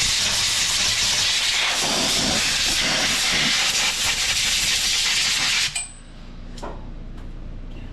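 Compressed-air blow gun blasting a steady, loud hiss to clear debris from around the fuel injector; the air cuts off suddenly about six seconds in, followed by a faint click.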